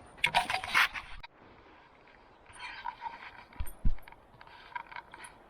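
Hand work on parts: a burst of scraping and rattling, then softer scraping with two dull thuds about three and a half seconds in.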